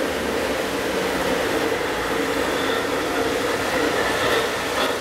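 Model train running along the layout track close by: electric motor whine and wheels running on the rails, over a steady background hiss.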